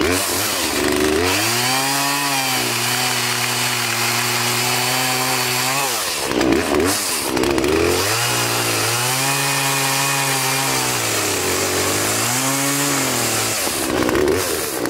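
Poulan Pro PP4218A 42cc two-stroke chainsaw revving up and cutting through a log, the engine holding a steady pitch under load. The throttle is let off about six seconds in, then the saw is revved back up and cuts again, with a shorter burst near the end as the cut finishes.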